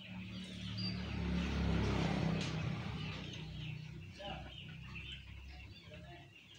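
Small birds chirping and chickens clucking in the background, over a low steady rumble that builds about a second in and then fades.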